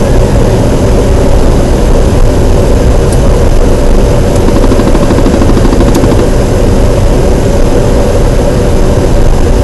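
Light aircraft's engine and propeller running steadily, a loud even noise heard inside the cockpit.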